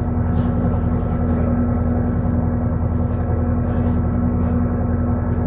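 Boat engine running steadily: a constant low drone with a steady hum and no change in speed.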